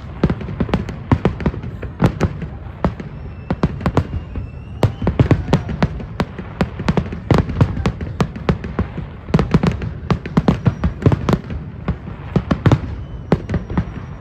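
Fireworks going off in a continuous, irregular barrage of cracks and bangs over a constant low rumble, with a few faint whistles of rockets climbing.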